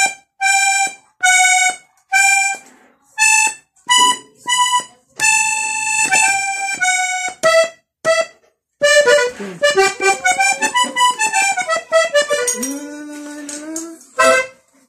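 Three-row diatonic button accordion playing a vallenato melody. First comes a string of short, separate notes about every half second, with some held notes between them. After a brief pause at about eight seconds, a fast continuous run of notes follows.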